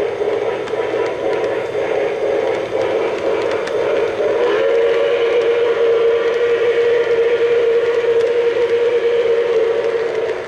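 Model freight train rolling past close by on its track, its cars and wheels making a steady drone that grows louder about halfway through, with faint clicks over it.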